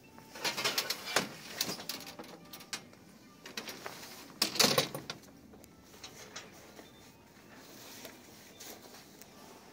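Handling and rustling noise from a handheld phone carried while walking: irregular scuffs and clicks, with a louder rustling hiss about four and a half seconds in.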